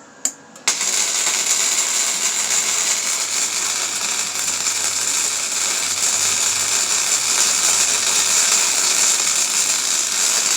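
Wire-feed (MIG) welding arc: a couple of short clicks, then under a second in the arc strikes and runs as a loud, steady crackle while the weld puddle builds and the bead is laid.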